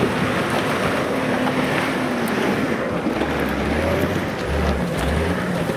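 Off-road 4x4's engine running under load as it climbs a muddy forest slope, deepening from about halfway through.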